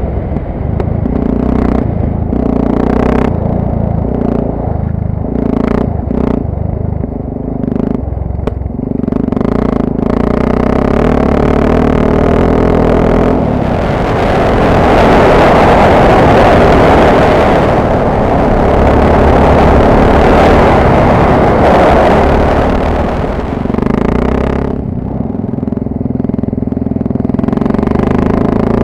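Off-road motorcycle engine running while riding a rough dirt track, with sharp knocks and clatter in the first ten seconds or so. About halfway through, a loud steady rushing noise drowns the engine for roughly ten seconds, then the engine note comes back clearly near the end.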